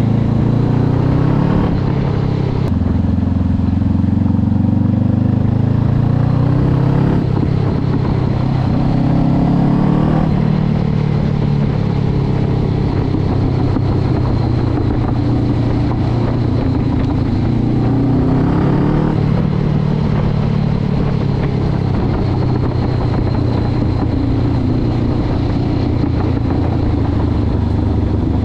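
Honda CB500X's parallel-twin engine running under way on a dirt road, its revs rising and falling several times as the rider works the throttle.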